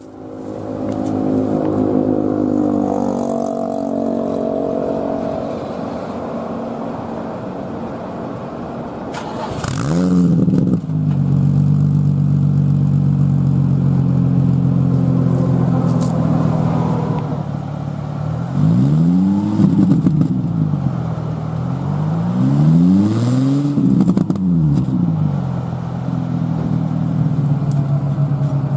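Vehicle engine idling steadily through a homemade exhaust muffler, with a short throttle blip about ten seconds in and three more between about 19 and 24 seconds in.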